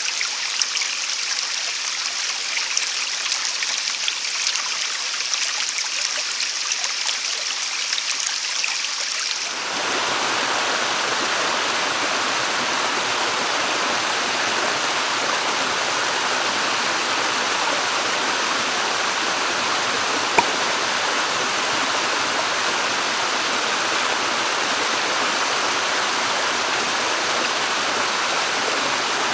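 Mountain headwater stream flowing over rocks. At first it is a bright, splashing trickle; about ten seconds in it switches abruptly to a fuller, steady rush of water.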